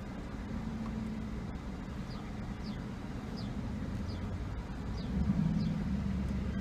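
Car engine idling, heard from inside the cabin as a steady low hum that swells briefly about five seconds in. Faint short high chirps repeat about every half second over it.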